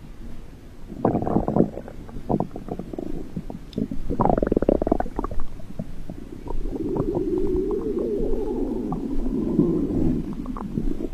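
Stomach growling: a run of short gurgles, then a longer gurgle that dips in pitch and rises again about four seconds in, followed by a long, drawn-out rumble.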